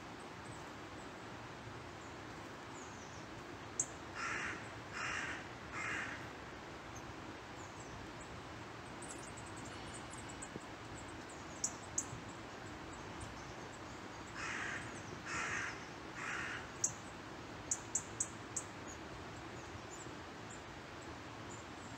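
Crow cawing in two bouts of three caws, the first about four seconds in and the second about ten seconds later, over a steady woodland background hiss. A few brief high chirps fall in between.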